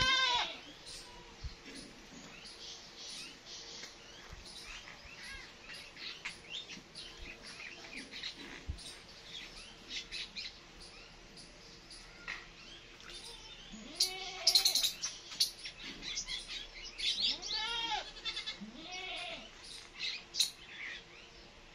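Kittens meowing now and then, with a few meows close together in the second half, over chirping birds that are loudest just past halfway.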